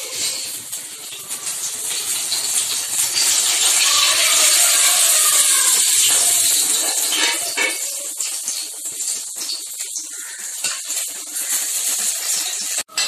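Loitta (Bombay duck) fish frying in hot oil in an aluminium kadai: a steady sizzle with a scatter of pops, loudest in the middle and dying down over the last few seconds.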